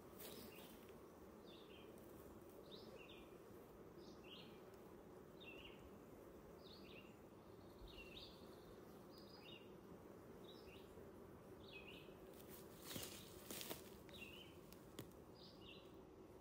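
Faint steady hum of honeybees buzzing around an open hive while frames of a nucleus colony are moved. A bird chirps short notes about once or twice a second over it, and there are a few knocks about three-quarters of the way through.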